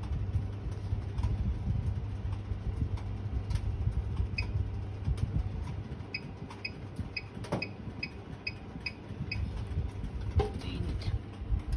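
Bosch oven's touch control panel beeping as the timer button is pressed over and over to set a one-hour cooking timer. Short high beeps come about two or three a second, in a run through the middle and again near the end, over a steady low hum.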